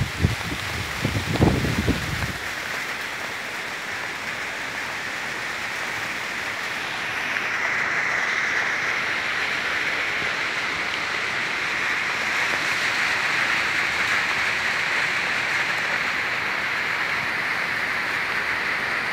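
Steady rain falling on a garden and the surface of a small pond, an even hiss that grows a little louder about a third of the way in. A few low thumps in the first two seconds.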